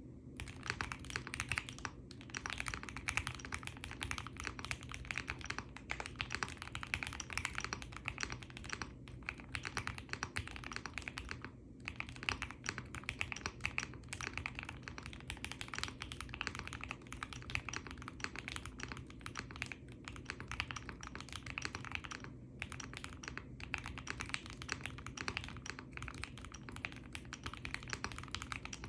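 Fast continuous typing on a custom mechanical keyboard (Mr Suit) with a POM plate, PE case and plate foam, lubed 43studio opblack switches and GMK keycaps, with a few brief pauses.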